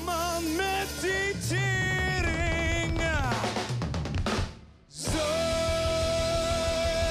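Live rock band: sung vocals over electric guitar, bass guitar and drum kit. About four seconds in the band drops out for half a second, then comes back in with a long held note over the drums.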